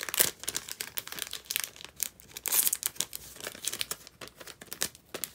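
Packaging crinkling and rustling as it is handled while photocards are put back into their wrapping: a run of irregular sharp crackles, loudest in a cluster about two and a half seconds in.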